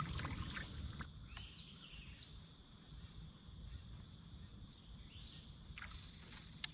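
Insects trilling steadily at a high pitch, with a low rumble beneath and a few faint clicks.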